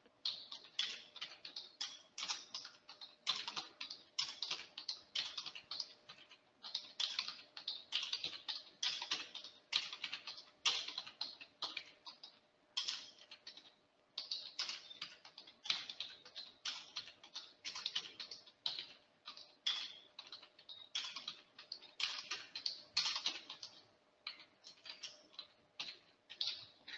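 Computer keyboard typing: quick runs of irregular keystrokes broken by short pauses, as values are entered into a table.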